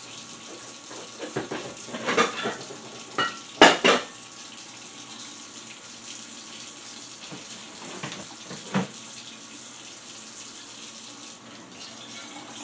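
Kitchen faucet running steadily into a stainless steel sink, with a few short knocks and clatters of dishware being handled, the loudest a little under four seconds in.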